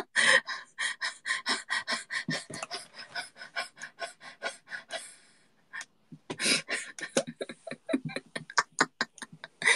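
A fast, even run of short clicks at a computer, about five a second, while editing in Photoshop. It stops for about a second some five seconds in, then resumes.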